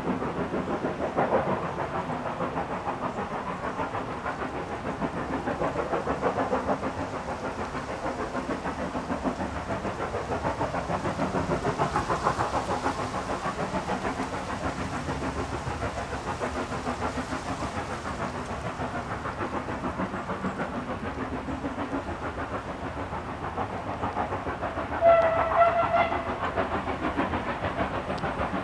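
Steam tank locomotive hauling a passenger train, its exhaust chuffing in a steady beat. A couple of short steam whistle blasts sound near the end.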